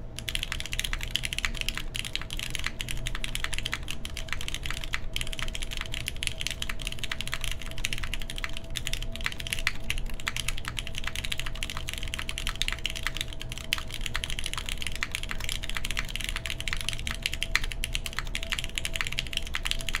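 Continuous fast typing on an OC-62 mechanical keyboard with lubed Cherry MX Black linear switches, a full aluminium plate and GMK keycaps: a dense, unbroken stream of key clacks that starts at once.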